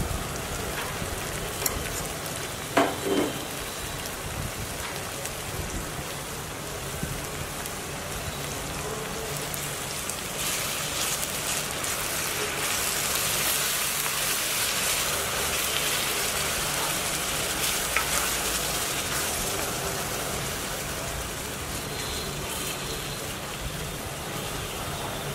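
Tomato puree and onions sizzling in hot oil in a kadai, stirred with a wooden spatula. A short knock comes about three seconds in, and the sizzle grows louder from about ten seconds in while the mixture is stirred.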